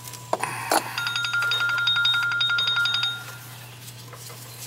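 A phone ringing with a trilling electronic ring in bursts of about two seconds, starting about a second in, stopping, then starting again at the very end. A few sharp clicks from wires being handled come in the first second.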